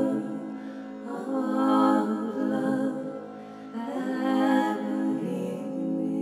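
A woman's wordless singing in long held tones, swelling twice, over a steady low drone.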